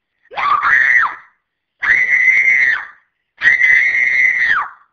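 A woman screaming three long, high-pitched shrieks with short pauses between them. The first starts lower and rises, the next two are held at one high pitch, and the last drops away at its end.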